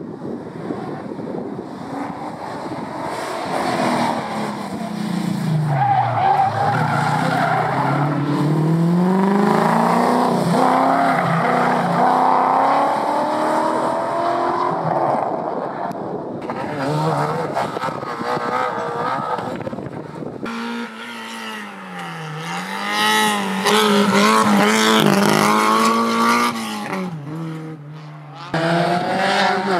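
Race car engines revving hard, their pitch climbing and falling again and again through gear changes and lifts off the throttle, with tyres squealing and skidding. The sound changes abruptly about 20 seconds in and again near the end.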